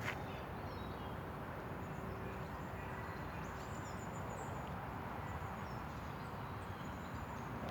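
Wild birds chirping and whistling in short, scattered calls over a steady low background noise.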